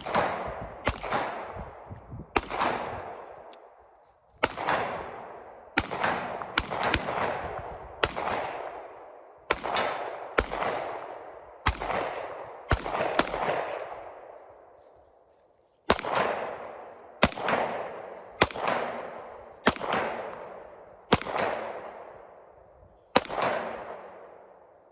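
Gunshots fired one at a time, about twenty in all, mostly about a second apart with a few quick doubles and a short pause midway. Each shot rings out in a long fading echo.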